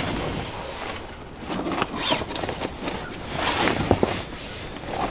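Nylon carry bag and its straps being handled and unbuckled: irregular rustling with a few sharp clicks, busiest about three and a half seconds in.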